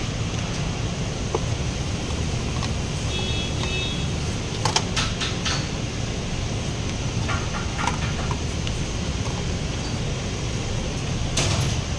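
A steady low hum, with a few sharp clicks about five seconds in, a few fainter ones around eight seconds and one more near the end, as of a steel open-end wrench being handled against a bolt.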